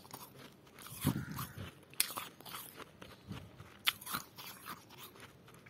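Freezer frost being bitten and chewed close to the microphone: uneven crisp crunching and crackling, with a heavier bite about a second in and sharp cracks near two and four seconds in.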